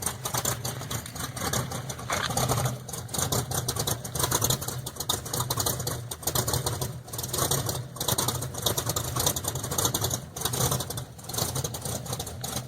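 1973 Chevrolet Camaro engine idling after a cold start, with a Crane 232-duration cam, exhaling through dual exhaust into separate Magnaflow turndown mufflers. The idle is steady with an uneven pulse in its loudness.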